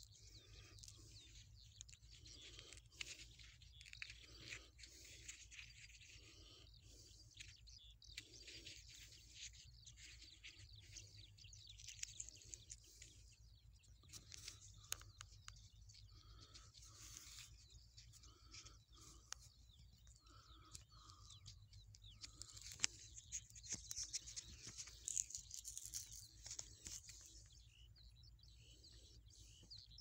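Faint chirping of small birds, with scattered light clicks and rustles close by.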